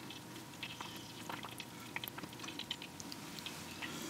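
Faint, irregular crackling and ticking of frying oil beginning to bubble in a small heavy pan, with soft handling sounds of food being wrapped.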